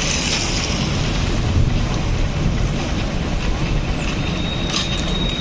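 Steady outdoor rumble and hiss of wind buffeting the microphone, mixed with road traffic.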